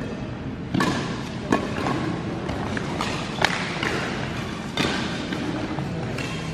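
Badminton rally: about five sharp cracks of rackets striking the shuttlecock at irregular intervals, each with a short echo in a large sports hall.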